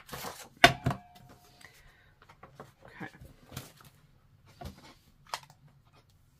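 A 2 3/8 inch circle paper punch clunking through designer paper: one sharp click with a short ring less than a second in, then quieter scattered clicks and knocks of paper and tools being handled.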